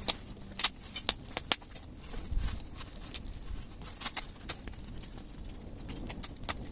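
Open burn pile of trash and rotted wood crackling, with irregular sharp pops, several close together in the first two seconds.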